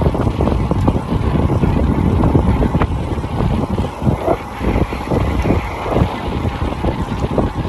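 Wind buffeting the microphone of a camera carried on a moving road bike: a loud, rough, low rumble with uneven gusts.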